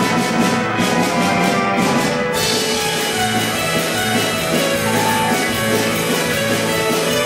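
Ensemble of Russian gusli playing a tune together, the plucked strings ringing in sustained chords. A drum kit keeps a beat for the first couple of seconds, then its strokes drop out while the gusli play on.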